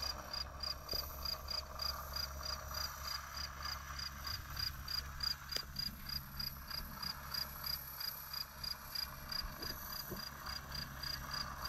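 A cricket chirping steadily, about three short high chirps a second, over a faint steady hum.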